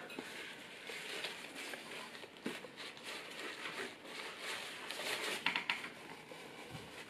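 Soft rustling and crinkling of leaf-wrapped rice dumplings and their cotton strings being handled and gathered into a bundle, with small clicks here and there, busiest about five seconds in.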